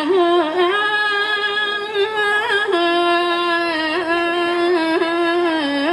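A woman singing a Thai sarabhanya (Buddhist verse chant) solo into a microphone, drawing out long held vowels with small wavering turns in pitch. The note steps down a little about halfway through.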